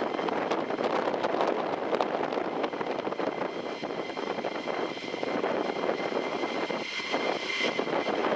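Distant Eurofighter Typhoon's twin EJ200 turbofans, a steady jet rumble as it approaches, with a high engine whine growing louder near the end. Wind buffets the microphone throughout.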